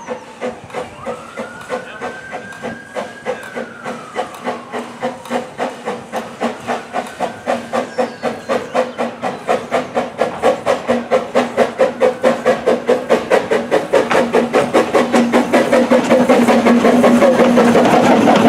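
Saddle-tank steam locomotive 'Talyllyn' working a train, its exhaust chuffing in even beats about three a second, over a steady hiss of steam. The beats grow louder as the engine draws near and passes close by.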